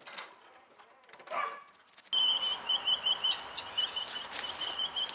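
A dog gives one short yip about a second in. From about two seconds in, a steady outdoor background starts, with a bird chirping rapidly on one high note.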